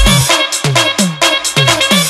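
Electronic dance music with a steady fast beat, about four drum hits a second with hi-hats; the deep bass drops out about a quarter second in.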